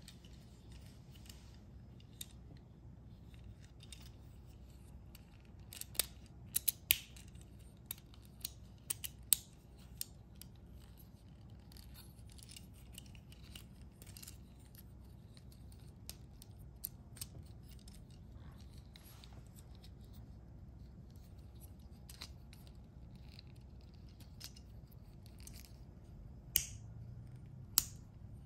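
Small plastic parts of a transforming toy ambulance clicking and snapping as they are folded into robot form: scattered sharp clicks, a cluster of them about six to ten seconds in and two more near the end, over a faint low hum.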